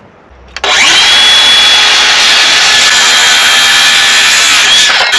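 Circular saw spinning up about half a second in and cutting through a 2x10 wooden deck board, running steadily with a high whine, with a brief dip near the end.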